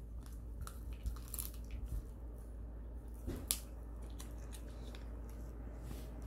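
Shiba Inu gnawing a large meat-wrapped bone treat: scattered soft crunches and tooth clicks, with one sharper crack about three and a half seconds in, over a steady low hum.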